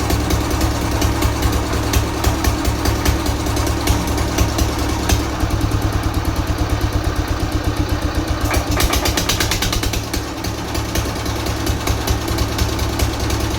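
Old diesel engine running, with a steady rapid firing beat.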